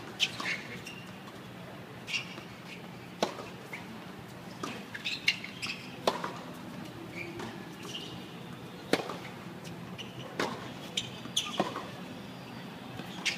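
Tennis rally on a hard court: a string of sharp pops from racket strings striking the ball and the ball bouncing on the court, irregularly spaced about one to two seconds apart.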